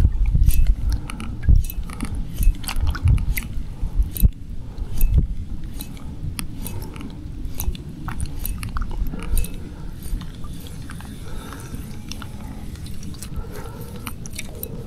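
Wind rumbling on the microphone, strongest in the first five or six seconds, with scattered irregular clicks and crunches throughout.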